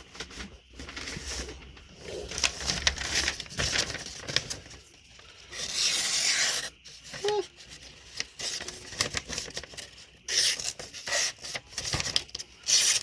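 Budget folding knife blade scraping and slicing through paper, with a louder hiss about six seconds in and a run of sharp scrapes near the end: a test of its factory edge, which turns out not terrible but could be better.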